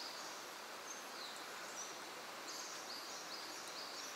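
Faint outdoor background hiss with small birds calling in short, high chirps, including a quick run of several notes about two-thirds of the way through.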